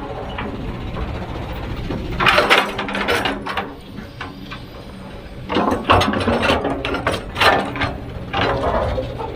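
Heavy earthmoving machine at work: a steady low engine drone, broken three times by bursts of rattling clatter.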